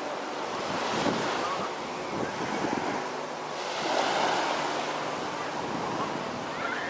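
Ocean waves breaking and washing on the beach, with wind buffeting the microphone; the surf swells about a second in and again about four seconds in.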